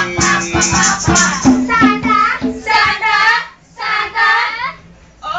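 A Tagalog Christmas song sung loudly over music, with a shaker-like rattle and percussive strikes in the first second or so. After that, voices hold long wavering notes, with a short break about three and a half seconds in.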